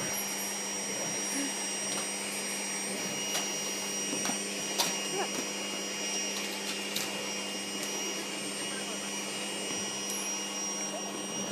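A household vacuum cleaner running steadily with a constant hum, with a few short knocks and clicks over it.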